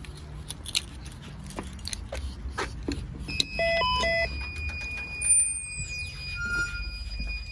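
Building-entrance door intercom beeping a short run of stepped electronic tones as a key fob is held to its reader, with a steady high tone starting together with the beeps and continuing. A thump about five seconds in as the door is opened, with light footsteps and clicks before the beeps.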